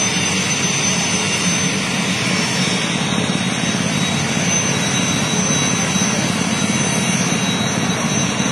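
Helicopter turbine engine running steadily: a constant rush with a high, even whine over it.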